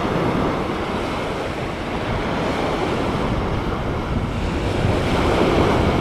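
High wind buffeting the microphone over surf washing onto the beach: a steady rushing noise with no engine or propeller tone in it.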